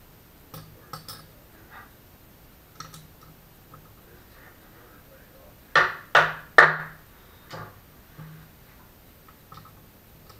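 Clicks and knocks of tools and parts being handled on a workbench, with three loud knocks in quick succession a little past halfway.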